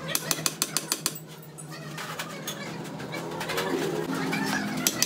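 A quick run of sharp clicks in the first second, then a low wavering cooing call about three and a half seconds in, over a steady hum.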